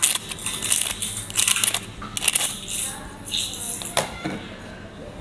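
Crisp fried pani puri (golgappa) shells crackling and crunching as they are handled and pressed in the hand, in a run of irregular crackly bursts with a sharp snap about four seconds in. The crackle is the sign that the puris are fried well and crisp.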